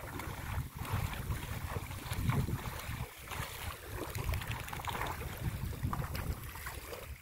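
Wind buffeting the microphone in uneven low gusts, over light splashing of shallow water as a man scoops water by hand.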